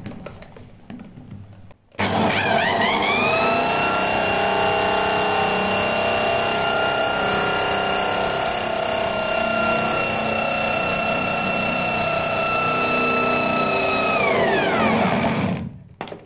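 Electric drill spinning a motorcycle magneto flywheel around its stator to generate power on a bench test. The motor speeds up about two seconds in, with a rising whine, runs at a steady high pitch, then winds down and stops near the end.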